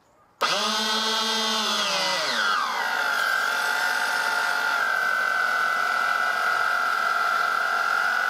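Electric gear pumps, 3D-printed and driven by 775 DC motors, switching on all at once with a high whine. Their pitch falls about two seconds in, then holds steady as they keep pumping water.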